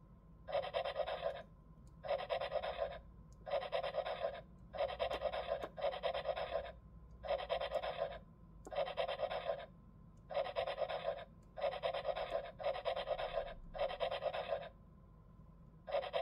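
Scratchy, pencil-like scribbling sound effect from a VTech Professor Schreibfix learning computer's speaker, played in about a dozen short bursts of roughly a second each while its stylus traces the dotted lines of a picture.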